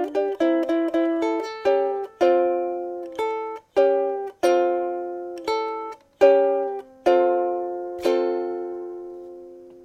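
Anuenue Oahu solid koa soprano ukulele being played: a run of quick notes, then slower chords, the last chord about eight seconds in ringing out and fading away.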